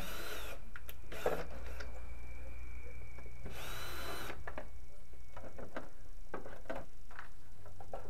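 Power drill running in several short bursts, over a steady low hum.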